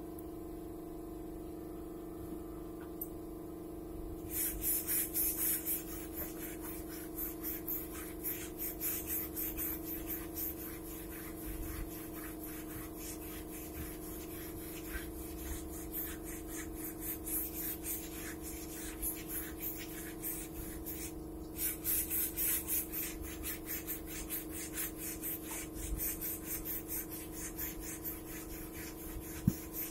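Compressed-air paint spray gun hissing in repeated bursts from about four seconds in, as paint is sprayed in strokes. A steady low hum runs underneath, and a single sharp click comes near the end.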